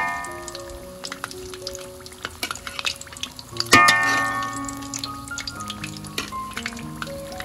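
Hot oil sizzling and crackling in a metal wok around fried fish as a metal spatula scrapes and lifts them out, with a loud ringing clank a little before the middle.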